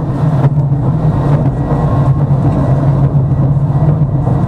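Tram in motion, heard from inside the passenger car: a steady low rumble of wheels on rails and running gear, with a couple of faint knocks.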